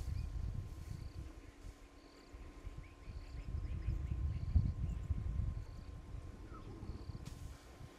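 Bush ambience: an insect chirps with short repeated notes about once every three quarters of a second, and a brief run of quick bird twitters comes about three seconds in. Irregular low rumbling surges sit underneath, loudest about midway.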